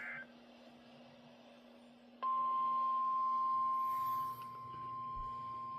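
A weather radio's speaker ends a burst of warbling EAS/SAME alert data. After a short pause of hum and hiss, a single steady NOAA Weather Radio warning alarm tone starts suddenly about two seconds in and holds, dropping a little in level about four seconds in. The alarm tone announces a warning about to be read out.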